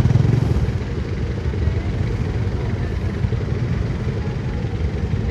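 Motorcycle engines idling in stopped traffic: a steady low rumble, a little louder in the first half second.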